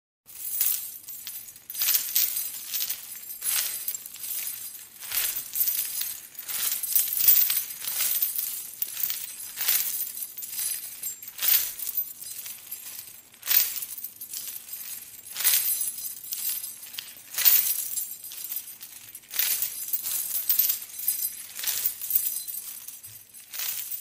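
Sharp, bright clinking hits with short ringing tails, louder ones about every two seconds and smaller ones between, mostly high in pitch.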